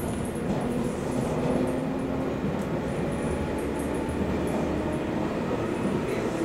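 Cabin sound of a JNR 213 series electric multiple unit's motor car under way: a steady rumble of wheels on rail, with the traction motors' faint hum slowly rising in pitch as the train gathers speed.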